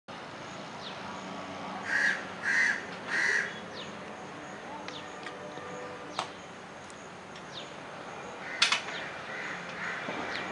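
A crow cawing three times in quick succession about two seconds in, with faint, quick, high falling bird chirps now and then and two sharp clicks later on.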